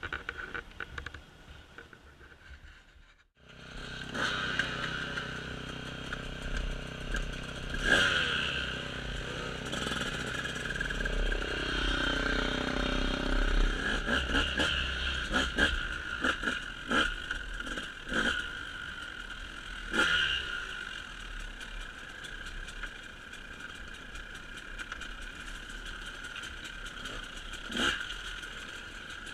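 An engine running steadily, its pitch briefly shifting about twelve seconds in, with a few sharp knocks and clatter over it.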